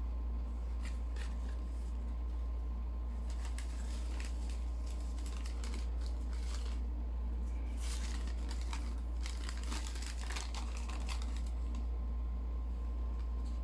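Packaging being handled, with paper crinkling and rustling in irregular bursts, busiest in the middle. A steady low hum runs underneath.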